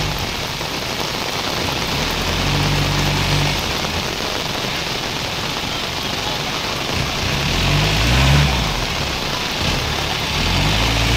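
Heavy rain pouring steadily, with a vehicle engine revving three times: a few seconds in, around two-thirds of the way through, and near the end.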